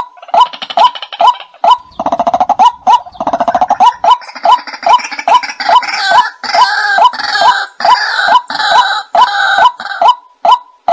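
White-breasted waterhen lure call: a loud short note repeating about twice a second. About two seconds in, harsh rasping croaks join it, followed by a denser chorus of overlapping calls.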